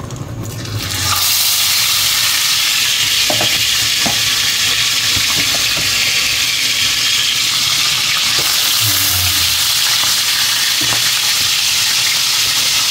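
Whole fish frying in hot oil in a pan: a loud, steady sizzle that starts about a second in as the fish goes into the oil, with a few light clicks of a metal spatula.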